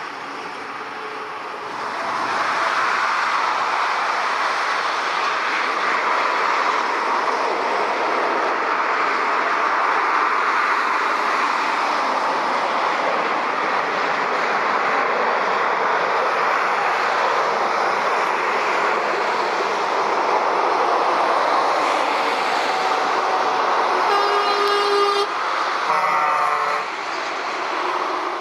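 Boeing 747-8's four jet engines at takeoff power: a loud, steady roar that rises about two seconds in and holds. Near the end, two short pitched tones sound over it.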